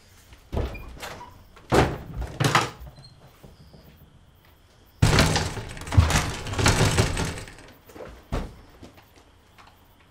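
Heavy thuds and bumps against a wooden door: three within the first few seconds, then a couple of seconds of dense banging and scuffling, and a last thump near the end.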